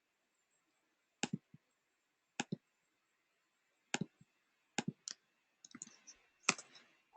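Computer mouse clicking: single clicks about a second apart, each a quick press-and-release pair, then a quicker flurry of clicks near the end.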